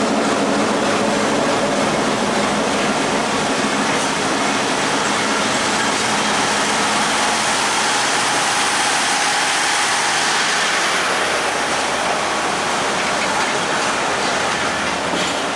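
Broad-gauge passenger coaches rolling past close by: a loud, steady noise of wheels running on the rails.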